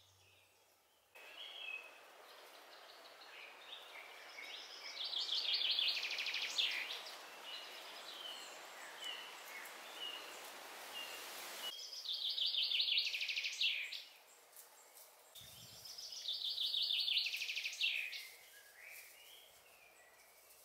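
A songbird singing three short, fast trilled phrases, each about two seconds long, several seconds apart, with a few single chirps between them. A steady hiss under the first half starts suddenly and cuts off abruptly about halfway through.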